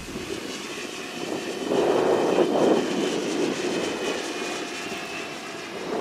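Align T-Rex 760 RC helicopter in flight, its rotor whirring steadily and swelling louder about two seconds in, with a faint steady high whine over it.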